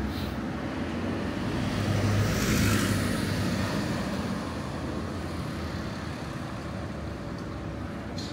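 A road vehicle driving past, its engine and tyre noise swelling to a peak about two and a half seconds in and then fading away over steady street background noise.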